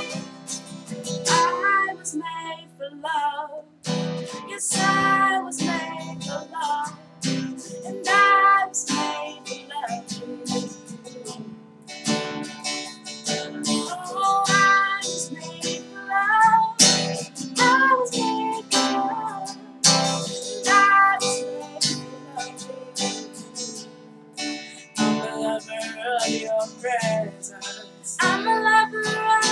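Music: acoustic guitar strumming chords, with a woman's wordless singing rising over it at times.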